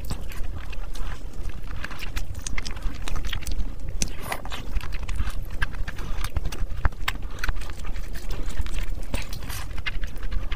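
Close-miked chewing and wet lip-smacking of saucy chicken and fried rice eaten by hand: a dense, irregular run of sticky clicks and squelches.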